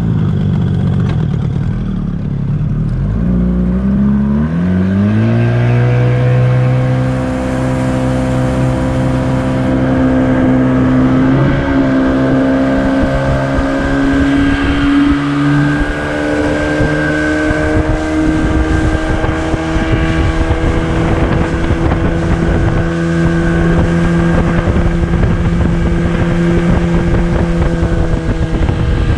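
Outboard motor on a small tiller-steered boat revving up over a few seconds, then running steadily at speed, its pitch creeping slightly higher. A rushing, fluttering noise runs underneath.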